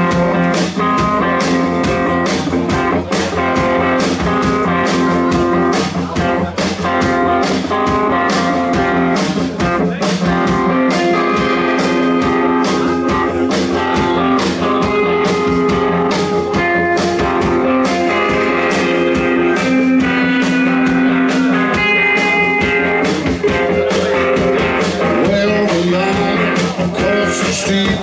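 Live blues band playing, guitar prominent over a steady drum beat.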